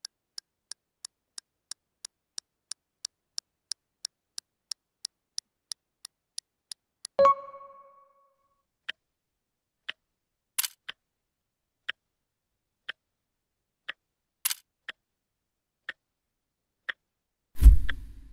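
Clock-ticking sound effect: quick ticks, about three a second, for the first seven seconds, then a single bell-like ding, then slower ticks about once a second. A low thump comes near the end.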